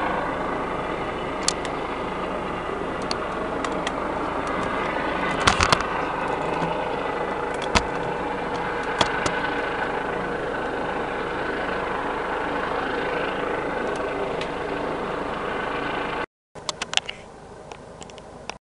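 Steady drone of a distant helicopter, with a few sharp clicks over it. The drone cuts off suddenly near the end, leaving a quieter stretch with more clicks.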